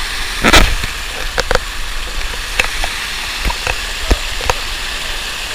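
A waterfall's steady rushing roar, with scattered sharp clicks and taps over it, the strongest about half a second in.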